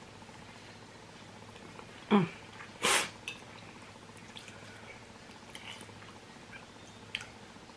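A woman hiccups once about two seconds in, a sudden short 'hic' that drops in pitch, brought on by eating very spicy noodles. A moment later comes a brief hissy noise, and faint mouth clicks and smacks of eating follow.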